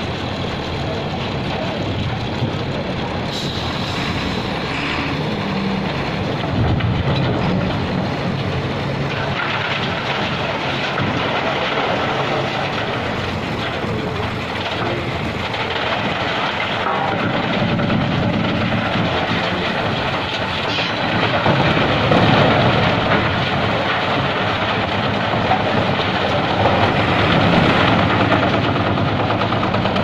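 Large belt-driven drum wood crusher running and shredding scrap timber: a continuous loud grinding din with occasional sharp cracks as pieces break, over a wheel loader's diesel engine running.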